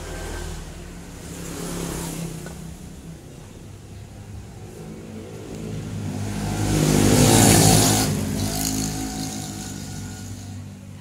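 A motor vehicle's engine passing by, growing louder to a peak about seven and a half seconds in and then fading away, with a smaller swell about two seconds in.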